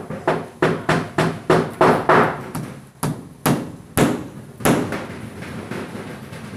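Hammers tapping nails into plywood wall boards: a rapid run of strikes, about three a second, with several sharper blows in the middle, then softer taps.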